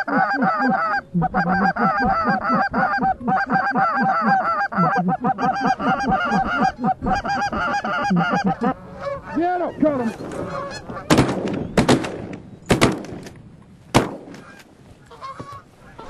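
A flock of Canada geese honking constantly and densely, thinning to a few single honks after about nine seconds. Then a volley of shotgun shots, several in quick succession over about three seconds, as the geese come into the decoys.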